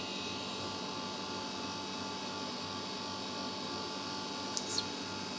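Steady background hum with thin whining tones, and a brief faint high squeak about four and a half seconds in.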